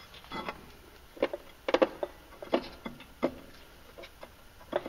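Irregular light clicks and taps from hands working a rubber CVT drive belt onto the finned metal secondary clutch sheave, about eight or nine short knocks spread unevenly.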